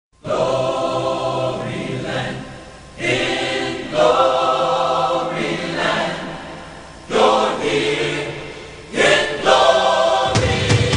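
Gospel choir singing slow, held chords without accompaniment in five phrases, each swelling in and fading away. Near the end the band comes in with a low beat.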